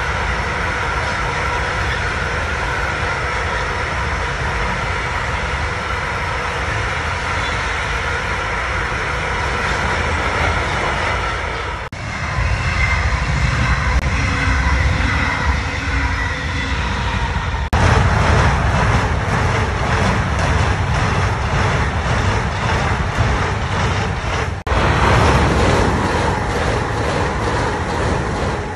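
Trains passing close by, in short clips cut one after another. First a freight train of hopper wagons rolls past with a steady noise of wheels on rail. Then, from about twelve seconds in, a double-deck metronom regional train passes, and near the end an ICE high-speed train.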